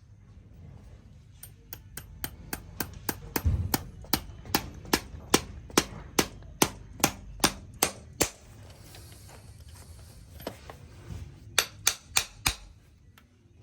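Farrier's hammer striking metal in a steady rhythm of about two and a half sharp blows a second, then a pause and four more quick blows near the end.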